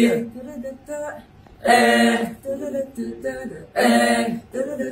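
A group of young male voices singing short phrases together without instruments, with brief pauses between the phrases.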